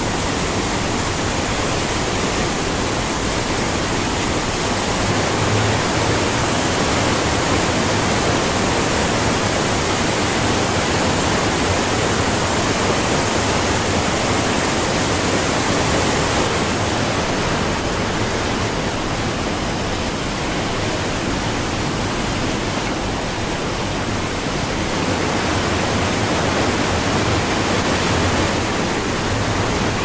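Niagara Falls: a steady, loud rush of falling water, an even wash of noise with no breaks.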